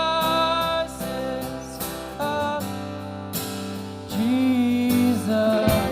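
Live worship band music: a held sung note that ends about a second in, over strummed acoustic guitar and a steady bass, with short sung notes returning later.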